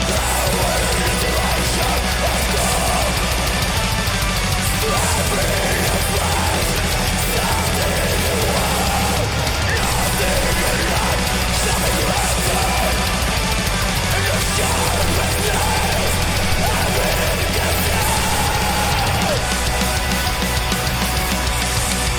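Black metal music playing: dense distorted guitars over a busy drum kit in a loud, unbroken wall of sound.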